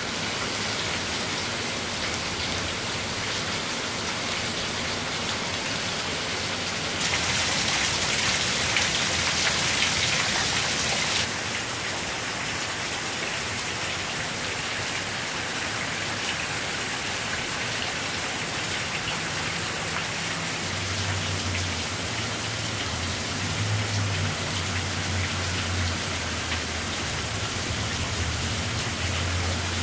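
Torrential hurricane rain pouring onto flooded pavement, grass and trees, a steady heavy hiss that grows louder for a few seconds about a quarter of the way in. A low rumble sits underneath in the last third.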